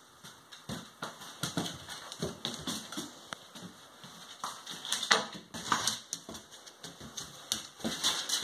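A dog's claws clicking and scrabbling on a tile floor while a small ball bounces and rolls on the tiles as the dog paws at it, making irregular sharp taps that start just under a second in.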